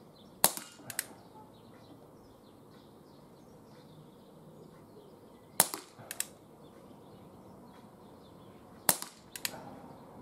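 ASG Schofield 6-inch CO2 air revolver firing pellets single action: three sharp shots, the second about five seconds after the first and the third about three seconds later. Each shot is followed by a fainter click about half a second after it.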